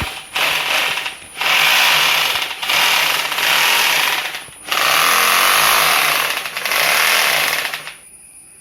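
Powertex PPT-RH-E rotary hammer drill running with no load in several loud bursts, switched on and off: a short blip at the start, then about three longer runs of a dense rattling mechanical noise that stop about eight seconds in.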